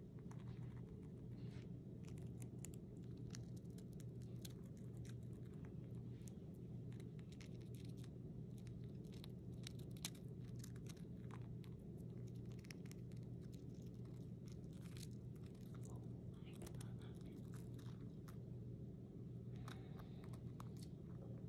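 A Syrian hamster nibbling a dry round cracker: many quick, faint crunches and crackles from its small bites, over a steady low hum.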